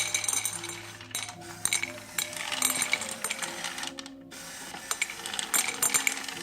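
Dry cat food pellets rattling and clinking as a feeder dispenses them, in several bursts, over background music.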